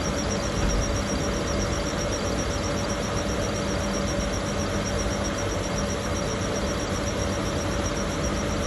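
Gladel washing machine running in a fast spin, a steady motor hum with a constant whine and no change in speed.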